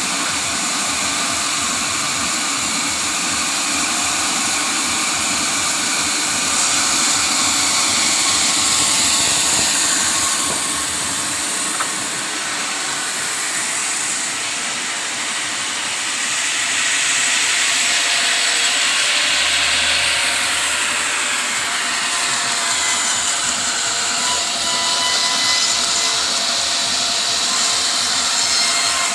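Sawmill saw running through timber: a loud, steady noise with a strong hiss. It swells and eases slowly, with no clear strokes or breaks.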